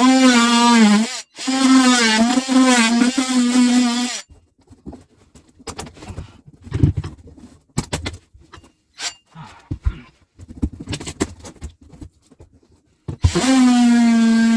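Power drill motor running in steady bursts with a short pause between them, then scattered knocks and handling clicks. The motor starts again near the end.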